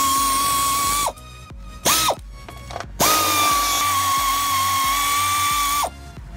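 Handheld power tool with a 10 mm socket spinning nuts off a plastic rocker-panel guard: a steady whine with hiss in three runs, about a second, a brief blip, then about three seconds, the pitch dropping off as the trigger is released each time.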